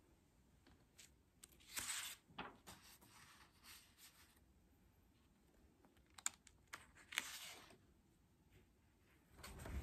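Faint handling of paper sheets: short rustles and a few sharp clicks and crackles as pages are shifted and held up. Near the end, low outdoor noise rises in.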